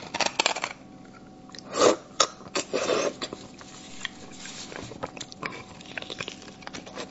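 Close-miked mouth sounds of eating spicy braised beef bone marrow: wet sucking and chewing, with a few louder bursts in the first three seconds and soft mouth clicks after.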